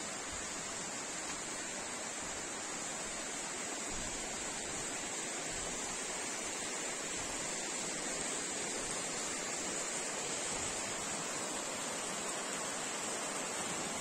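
Flowing water rushing steadily, a constant even noise with no breaks.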